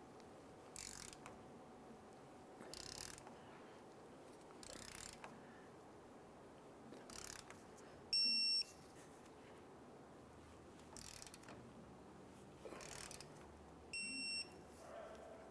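Ratcheting torque wrench cranked in short strokes every couple of seconds on the tie rod adjusting sleeve's clamp nuts. Twice, about eight and fourteen seconds in, a half-second electronic beep sounds: the wrench signalling that the 77 ft-lb target torque has been reached.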